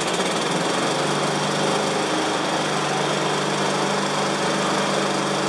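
Honda push mower's small engine running steadily just after being pull-started, freshly carburetor-cleaned but still not running quite right, which the owner traces to a partly clogged air filter.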